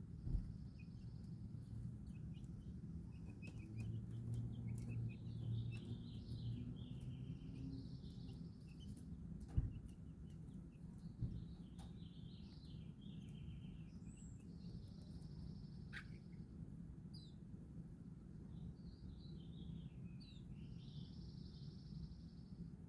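Small birds chirping and singing: a short trilled song phrase repeats every few seconds among scattered chirps, over a steady low background rumble. Two sharp thumps, one just after the start and a louder one about ten seconds in.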